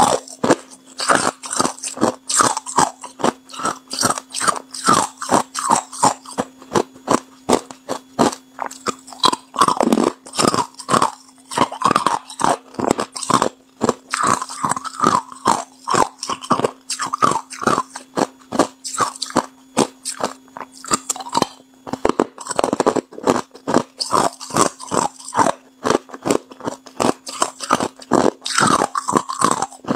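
Hard clear ice being bitten and chewed close to the microphone: crisp crunches, several a second, with a steady low hum under most of it.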